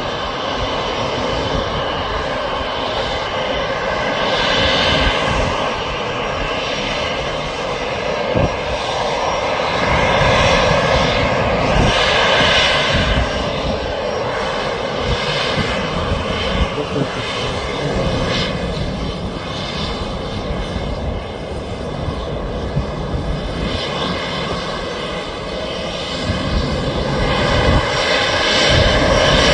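Airbus A320 jet engines at taxi power: a steady whine with several high tones over a low rumble, growing louder near the end as the airliner comes closer.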